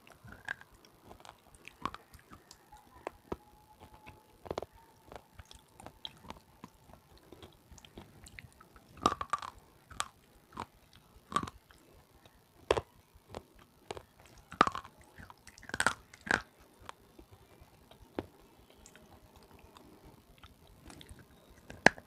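Close-miked biting and chewing of red slate pencil: irregular sharp cracks and crunches between quieter chewing, with the loudest bites in the middle stretch.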